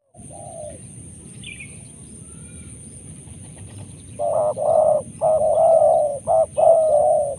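Spotted dove cooing: one short coo near the start, then from about four seconds in a loud run of repeated coos.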